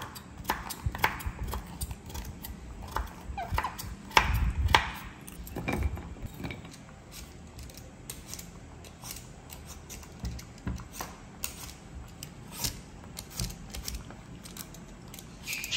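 Knife blade knocking on a wooden cutting board as carrots are sliced, several knocks over the first few seconds. Then comes the lighter, rapid clicking and scraping of a handheld vegetable peeler on a potato.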